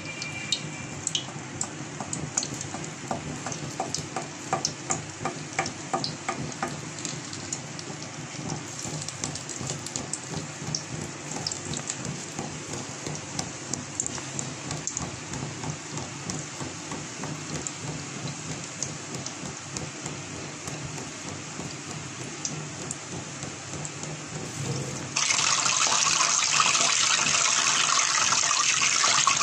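Drops of thin gram-flour (besan) batter falling through a perforated pan into hot ghee, sizzling and crackling as boondi fry. Near the end a much louder, steadier rushing hiss starts abruptly.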